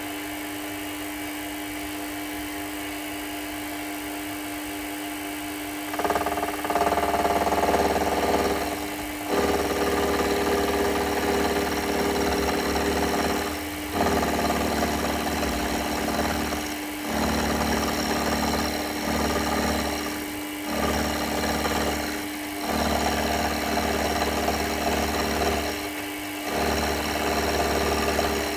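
A workshop machine's motor running with a steady hum. About six seconds in, a louder, rough working noise starts and goes on in stretches of a few seconds, broken by short pauses.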